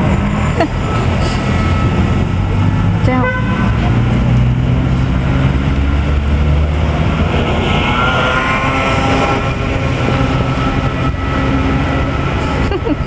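Steady low rumble of city traffic, with a few faint higher tones over it.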